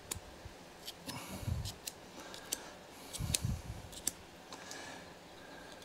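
Small sharp clicks and scratches of a metal pick scraping compacted grass and dirt out of a self-propelled lawn mower's wheel drive gear cog, with two short dull bumps.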